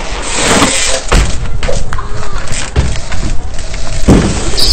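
Several dull thuds, about four, over a loud, rough, steady rumble, with faint voices in the background; the thuds fit a bicycle hitting the ground or a ledge during a stunt.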